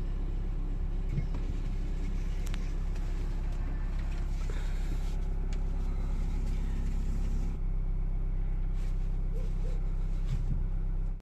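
Fiat Ducato camper van's engine idling steadily, a constant low hum; its tone shifts slightly about seven and a half seconds in.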